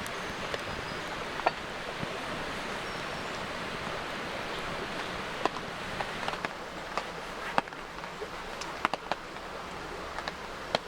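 Steady rain falling, with scattered sharp drips and drops ticking at irregular moments.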